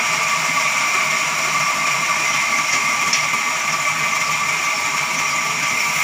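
A large sawmill band saw cutting lengthwise through a jackfruit log with a steady whining buzz.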